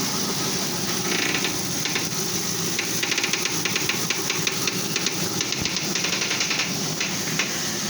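Ford Crown Victoria front steering linkage clicking and knocking in quick runs as the steering wheel is turned slowly one way, over a steady hiss. The owner takes it for a worn idler arm bushing or a binding tie rod.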